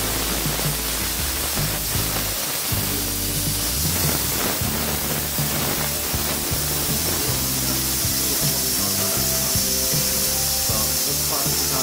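Stainless-steel pressure cooker venting steam through its turned release valve in a steady hiss, the pressure being let down so the lid can be opened. Background music plays over it.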